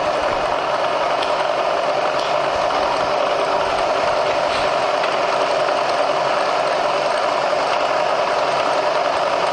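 Bridgeport variable-speed-head vertical milling machine running steadily in high range, its spindle turning with the power quill feed engaged and carrying the quill down. A few faint ticks sound over the steady whir.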